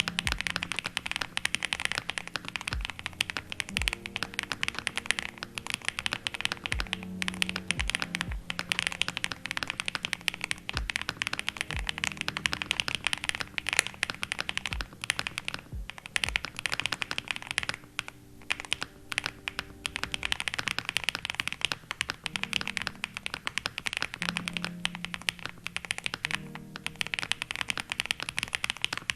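Rapid, continuous typing on a mechanical keyboard fitted with Gateron Smoothie linear switches, the keystrokes clicking and clacking in a dense stream.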